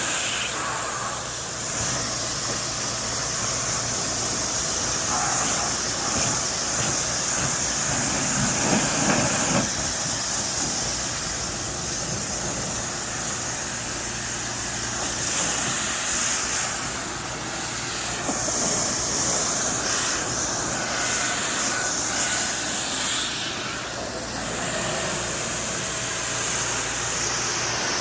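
Pressure washer running: a steady high hiss of water spraying from the wand over the low hum of the machine's engine and pump, rinsing down a screen enclosure.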